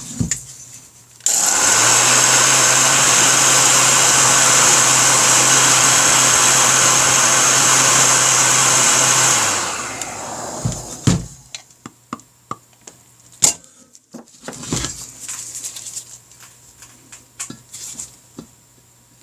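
A heat gun switched on about a second in, blowing hot air as a loud, steady rush over a motor hum for about eight seconds, then switched off and winding down. After that come light clicks and taps of metal tools and small parts being handled.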